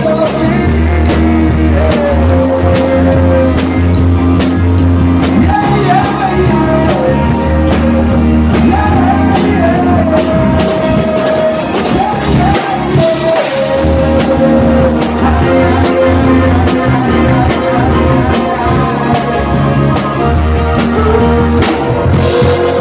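Live rock band playing loud: a drum kit keeps a steady beat under strong bass-guitar notes, with a sung melody over the top.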